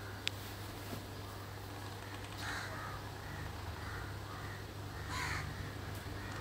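Several short bird calls, the clearest about two and a half and five seconds in, over a steady low hum, with a single sharp click just after the start.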